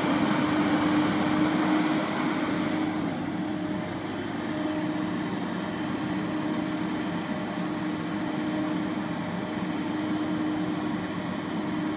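Caterpillar 529 knuckleboom loader's diesel engine and hydraulics running steadily, with a constant low hum, as the cab and boom swing round. The level eases slightly about two seconds in, and a faint high whine joins at about four and a half seconds.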